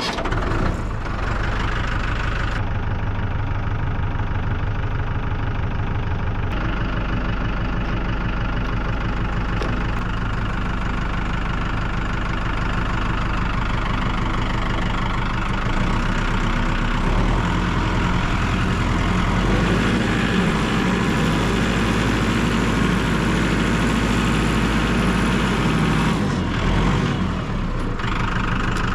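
Tractor engine running steadily just after being started, idling with a rough, knocking beat and small shifts in speed.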